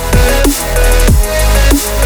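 Electronic background music with a heavy bass and a steady beat, with deep tones sliding down in pitch about twice a second.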